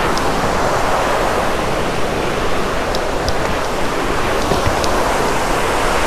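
Waterfall close by: a steady, loud rush of falling water.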